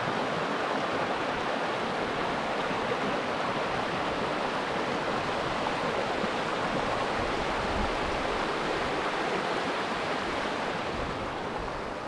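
Steady rushing of flowing water, easing slightly near the end.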